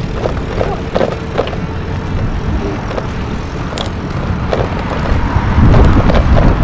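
Road traffic noise, with a low rumble that grows louder over the last second or so and scattered light clicks.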